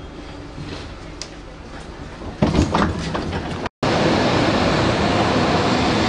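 A Berlin U-Bahn IK train's sliding doors opening with a loud clatter after the open button is pressed. After a cut, a Berlin U-Bahn A3L92 train runs along the platform with a steady, loud rumble.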